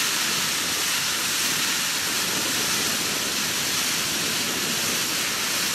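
Steady hiss of threshed grain pouring from a harvesting machine's spout into a trailer, with no breaks.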